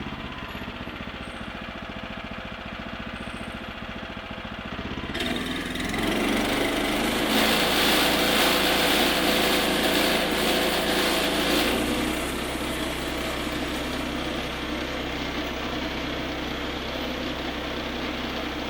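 Small petrol engine of a sawmill running: idling, then throttled up about five seconds in, running faster and louder for several seconds, then settling back to a steady lower speed about twelve seconds in.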